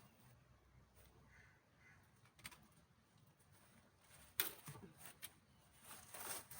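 Near silence, broken by one sharp knock about four seconds in and a brief rustle near the end.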